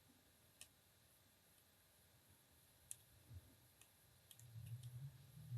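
Faint, sparse metallic clicks of a pick working the pins of a small four-pin Thema padlock under tension, a few scattered ticks with a small cluster near the end.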